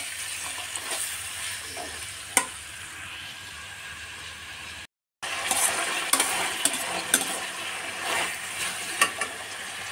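Chopped vegetables sizzling in hot oil in a stainless steel kadhai as they are stirred and tossed with a slotted metal spatula, with a few sharp clicks of the spatula against the pan. The sound cuts out for a moment about halfway through.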